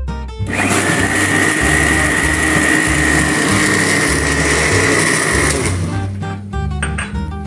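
Red countertop blender running at speed, puréeing a thick rocoto chili sauce, with a steady high whine over the motor noise. It starts about half a second in and cuts off after about five seconds.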